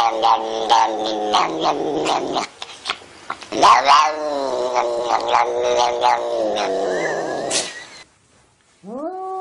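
A tortoiseshell cat yowling in two long, drawn-out cries that slide down in pitch, with a short pause between them. After a brief silence near the end, a grey fold-eared cat starts a long, wavering meow.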